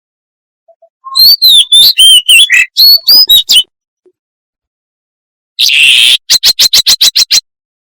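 Shrike calling loudly: a quick run of varied, gliding whistled notes lasting about two and a half seconds. After a pause comes a harsh rasping note, then a fast rattling chatter of about eight strokes a second.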